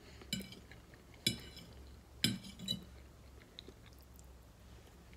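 Metal fork clinking and scraping on a ceramic plate three times, about a second apart, as the last of the spaghetti is gathered, followed by faint chewing.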